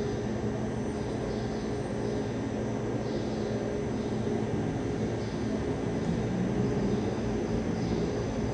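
Steady background drone with a low, constant hum, like distant engine or fan noise, unchanged throughout.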